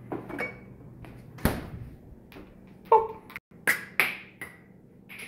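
Scattered knocks, taps and a brief clink of items being handled at an open refrigerator as a can of whipped cream is taken out.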